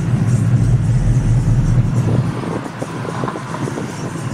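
Truck engine running at low speed, heard from inside the cab, with a steady low hum as the truck creeps up a driveway.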